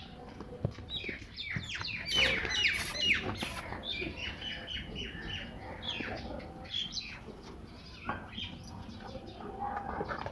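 A flock of small birds chirping busily, many short falling chirps overlapping, thickest and loudest in the first few seconds and thinning out afterwards.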